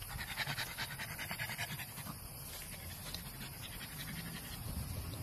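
Pug panting in quick, rapid breaths, loudest over the first two seconds or so and then fading.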